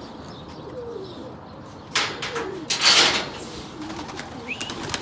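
Domestic pigeons cooing in short low calls. A sudden loud noise comes about two seconds in and a louder rustling burst about a second later.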